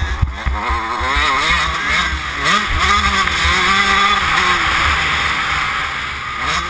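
Motocross bike engine revving hard under acceleration, its pitch climbing and dropping several times as the throttle is worked and the gears change, with heavy wind buffeting on the helmet-mounted microphone.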